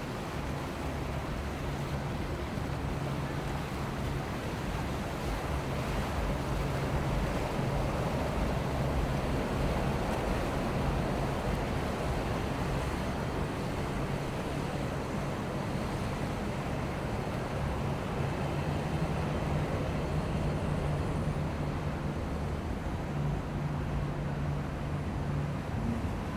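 Boat engines running, a steady low hum under the rush of water and wind on the microphone.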